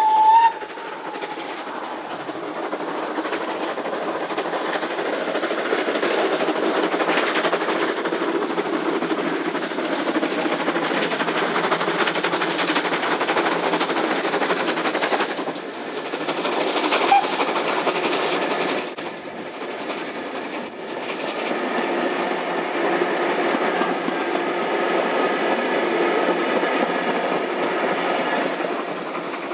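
Steam locomotive's whistle ends just after the start. Then the locomotive works past hauling its carriages, loudest around the middle, and the carriages roll by on the rails and ease off near the end.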